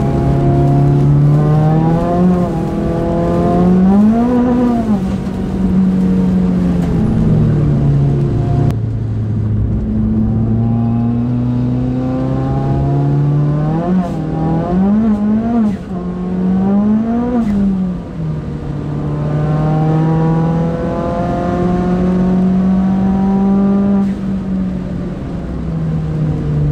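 Turbocharged Ford Fiesta ST engine under hard use, heard from inside the cabin: its pitch climbs under acceleration and drops back with gear changes and lifts off the throttle, several times over, with a few quick rises and falls about midway through.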